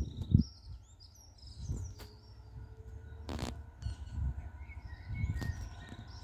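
Small birds chirping and twittering, over irregular low gusts of wind buffeting the microphone, with one short sharp burst of noise about three and a half seconds in.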